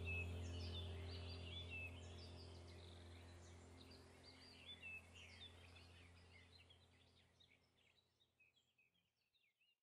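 Faint background audio track fading out: a low steady hum with quick bird-like chirps above it, dying away to silence near the end.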